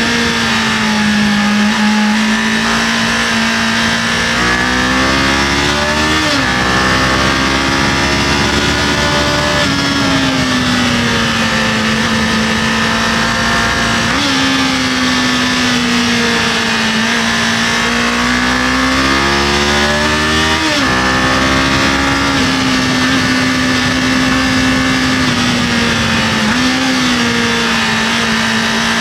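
Kawasaki KLE500 motorcycle engine under way, its pitch climbing and dropping again and again as the throttle is opened and eased off, over steady wind and road noise.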